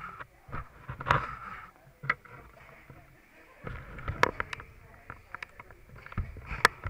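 Handling noise from a small action camera being moved against a motorcycle jacket: fabric rustling with irregular clicks and knocks, the sharpest about a second in and near the end.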